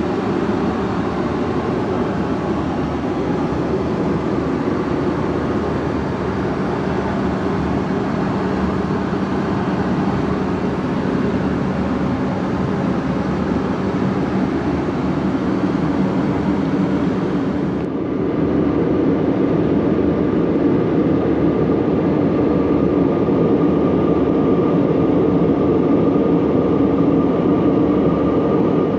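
Steady in-flight noise of an Airbus A320-232 in cruise, heard from inside the aircraft: a continuous rush of airflow and engine hum. About two-thirds of the way in the sound changes abruptly, becoming slightly louder with a steady hum over the rush.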